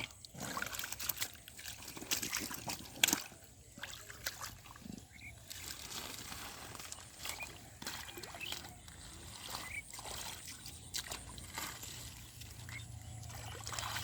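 Water sloshing and splashing as hands work through shallow muddy water among water hyacinth, with irregular sharp splashes, the loudest about three seconds in.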